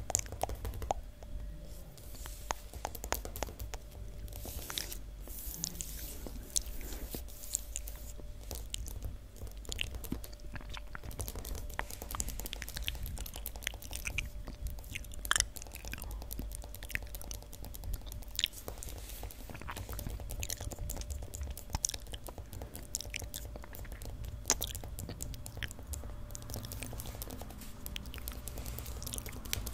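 ASMR mouth sounds close to the microphone: a dense, irregular run of small wet clicks and smacks, over a steady low hum.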